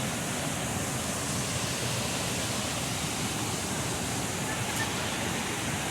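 Waterfall water rushing steadily, an even unbroken noise.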